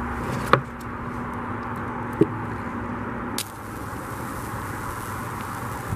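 High-voltage Lichtenberg wood-burning rig running, its probe arcing into wet pine as the fractal burns: a steady electrical hum with two sharp snaps, about half a second and two seconds in. One tone of the hum drops out about three and a half seconds in.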